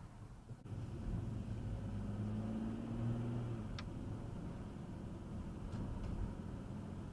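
A car driving, with low engine and road rumble. An engine hum stands out between about one and three and a half seconds. A few faint ticks come later.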